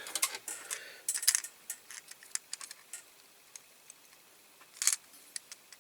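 Small clicks and light taps of a diecast model car's parts being handled and pressed together by hand while its springy suspension unit and chassis are fitted. The clicks are scattered and come thickest in the first few seconds, with a short scrape a little before the end.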